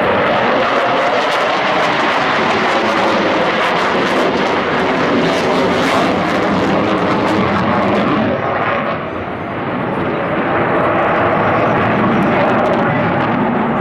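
Jet noise from an F/A-18 Super Hornet's two GE F414 turbofan engines as it flies a loop, loud and steady with a crackling edge, dipping briefly about nine seconds in.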